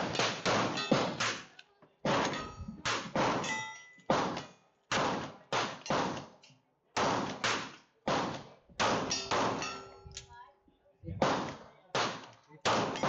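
Gunfire from several guns on a shooting-range firing line: about twenty sharp shots in an uneven, fairly rapid string, each with a short echoing tail. Some shots leave a faint ringing tone behind them.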